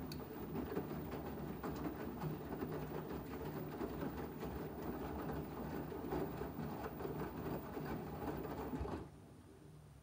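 LG front-loading washing machine tumbling wet laundry in its drum during the main wash: a steady motor and churning sound that stops about nine seconds in as the drum comes to rest.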